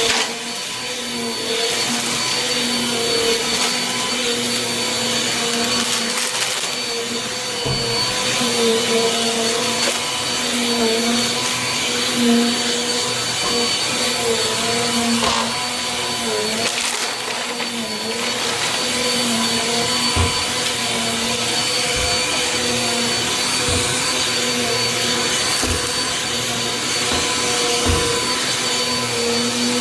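Small Bissell vacuum cleaner running steadily, its motor whine held at an even pitch over a rush of airflow, with a brief waver in the middle. A few short, dull knocks come through, mostly in the second half.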